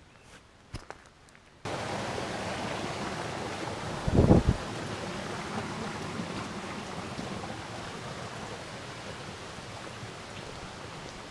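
Faint footsteps on a forest trail. About one and a half seconds in, a steady rushing hiss starts abruptly and slowly fades, with a brief low thump about four seconds in.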